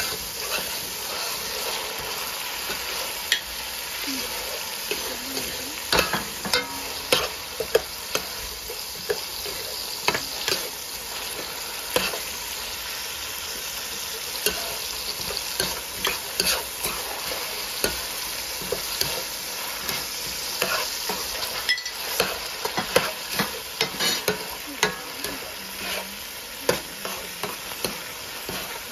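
Tomatoes frying in oil in a metal pot, a steady sizzle, with a metal spoon scraping and clicking against the pot as it stirs them, many times throughout.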